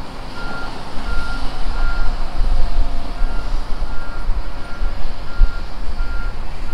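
Back-up alarm on heavy equipment, a steady high beep repeating a little more than once a second, over a loud low rumble of machinery.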